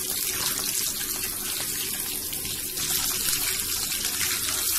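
Masala-coated whole fish deep-frying in hot oil: a steady sizzling hiss with fine crackling.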